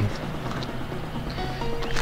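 Background music: steady sustained notes with no speech.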